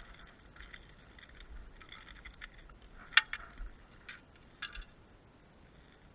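Light scrapes and metallic clinks of a landed barracuda and the treble-hooked plug lure in its mouth moving over a concrete pier as they are handled, with one sharp click, the loudest sound, about three seconds in and a few smaller clicks after it.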